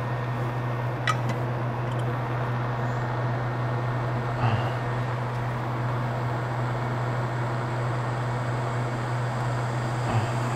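Steady blower noise of a hot air rework station, a low hum under a hiss, with three faint clicks spread through it.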